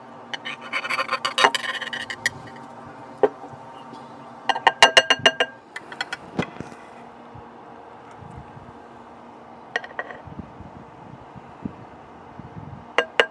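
Metal spatula scraping and clinking against a baking dish and a cast-iron plate. There is a scrape at the start, a quick run of sharp clinks about five seconds in, and scattered clinks later.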